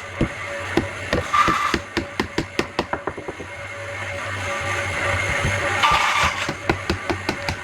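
A rapid series of short, light knocks, about three or four a second, which thin out after about three seconds and pick up again near the end, over a steady low hum.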